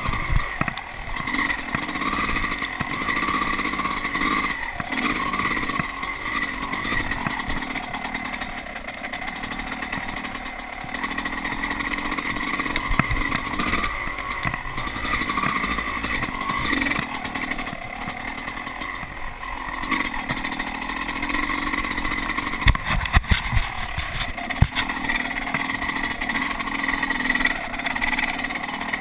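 Dirt bike engine running under changing throttle while riding, its pitch rising and falling. A few sharp knocks come near the end.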